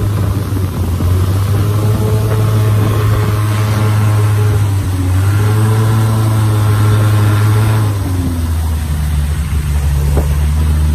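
Long-tail boat engine running steadily at speed, with the wash of water along the hull. About eight seconds in it throttles down to a lower, slower note as the boat slows.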